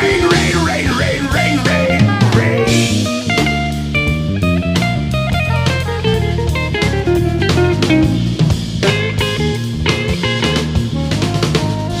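Instrumental rock music: electric guitar playing over a bass line and a drum kit with a steady beat, with bending guitar notes in the first few seconds.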